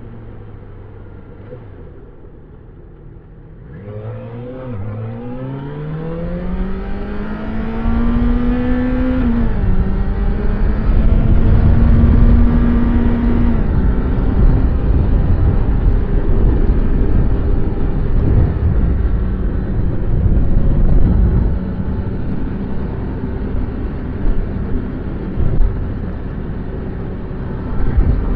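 Yamaha XJ6 Diversion F's stock 600 cc inline-four engine and exhaust under way. It runs quietly at first, then from about four seconds in the revs climb steadily. The pitch steps down on shifts near nine and fourteen seconds, and the engine settles into a steady cruise over a heavy low rumble.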